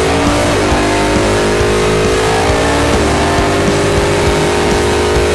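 Drag car's engine accelerating hard at full throttle, heard from on board: its pitch climbs steadily and drops sharply at two upshifts, about half a second in and again about three seconds in.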